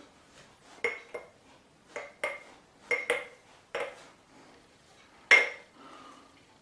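Shaving bowl clinking as lather is taken out of it: about eight sharp knocks, each ringing briefly, the loudest a little past five seconds in.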